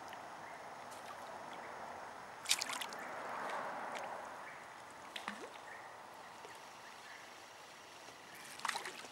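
Creek water trickling steadily, with a short cluster of sharp knocks about two and a half seconds in and another near the end.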